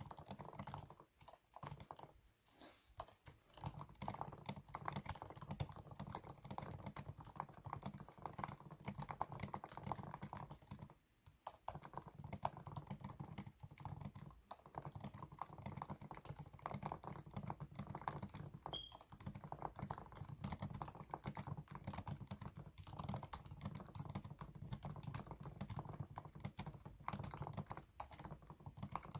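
Fast, continuous typing on a computer keyboard during a typing-speed test: a rapid stream of key clicks, with a brief pause about eleven seconds in.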